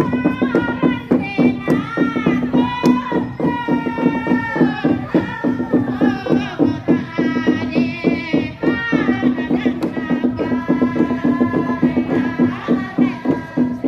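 Pa'katia dancers chanting a melodious Torajan ritual song in a group. The wavering melody rises and falls over a steady low drone, with quick rhythmic percussion running underneath.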